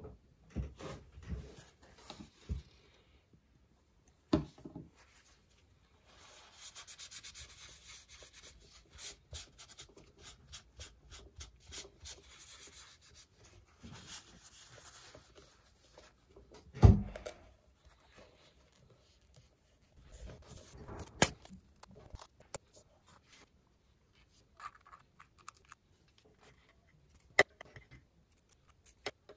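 A paper tissue rubbed over a glazed ceramic bowl in a long run of quick scratchy wiping strokes, among light handling noises. A few sharp knocks of the bowl being handled and set down, the loudest one a little past halfway.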